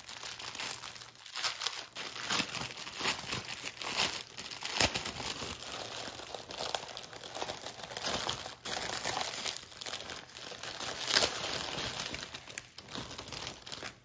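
Small plastic bags of diamond-painting drills crinkling and rustling as they are handled, with irregular sharp crackles throughout.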